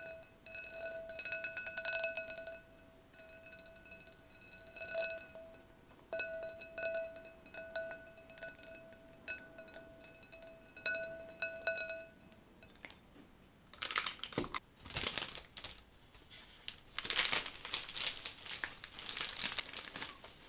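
Fingertips tapping and rubbing on a ribbed glass vase, the glass ringing with a steady clear tone under the taps for about twelve seconds. After a short pause comes a crinkling rustle of cellophane flower wrapping as a bunch of flowers is handled, lasting to near the end.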